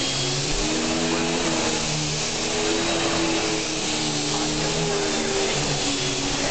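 Hoover Empower Commercial Hush upright vacuum cleaner running steadily, an even rush of motor and airflow with a thin high whine on top.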